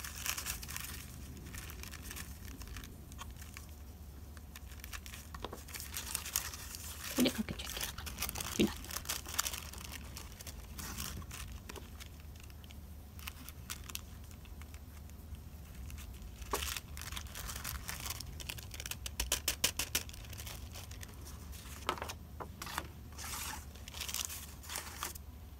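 Thin stamped tissue paper crinkling and rustling as it is handled and tilted, with scattered light taps and patter from embossing powder being sprinkled from a small shaker, over a low steady hum.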